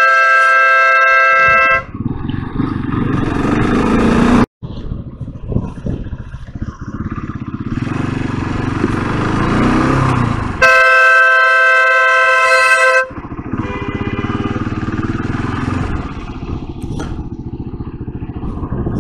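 A vehicle horn sounding in two long blasts of about two seconds each, one ending just after the start and another about eleven seconds in. Between them comes the motorcycle's engine and road noise.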